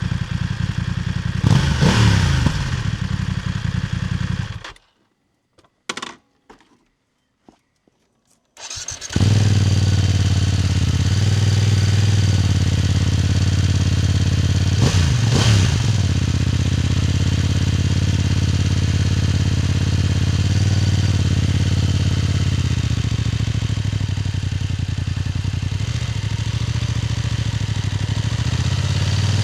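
BMW F900R parallel-twin motorcycle exhaust heard close up from above the muffler while riding. The engine runs steadily with a brief swing in pitch about two seconds in, drops out to near silence for about four seconds with a few clicks, then comes back at a steady pull with another short pitch swing around the middle and rises in pitch near the end.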